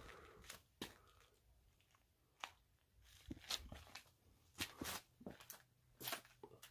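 Faint, irregular scuffs and clicks of slow footsteps on a gritty basement floor, about a dozen spread through, over near silence.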